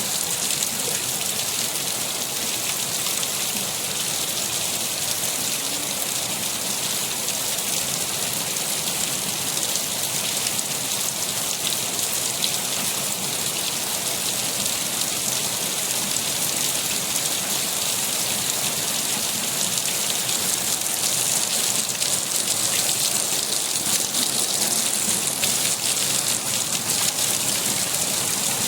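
Steady rain falling and pattering on a surface, a dense even hiss of drops that swells slightly near the end.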